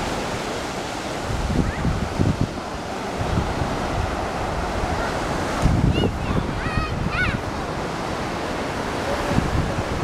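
Ocean surf washing steadily, with wind buffeting the microphone in low gusts. A few short high calls sound about six to seven seconds in.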